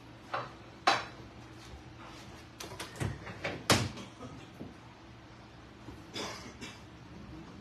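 Knocks and clatters of things being handled in a kitchen: a scatter of sharp knocks, the loudest a little under four seconds in, then a brief scraping rustle near the end.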